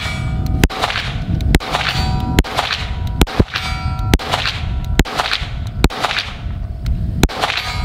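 Smith & Wesson M&P 22 Magnum pistol firing .22 WMR rounds in slow, steady fire, about one shot a second, each shot followed by the ringing clang of a hit on a steel target.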